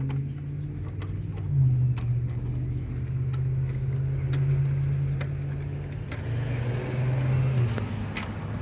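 A car engine running at a steady idle, with scattered light clicks and taps over it.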